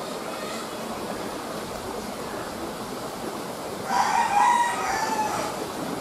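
A rooster crows once, about four seconds in, a single call lasting about a second and a half, over a steady background hiss.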